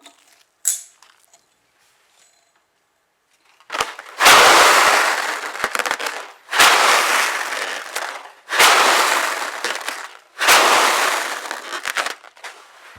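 Inflated rubber balloon with lentils inside, shaken hard: the seeds rattle against the rubber in four long bursts, starting about four seconds in and each fading over about two seconds. It is a foley imitation of thunder.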